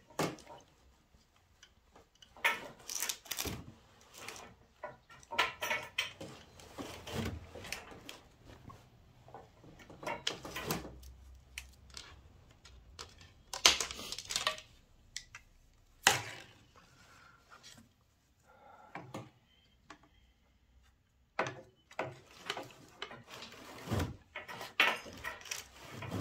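Wooden floor loom being worked by hand: irregular clusters of wooden knocks and clatter, with short scraping sounds between them and a few sharp single knocks standing out.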